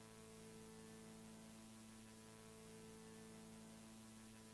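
Near silence with a faint, steady low hum that holds one pitch with several overtones and does not change.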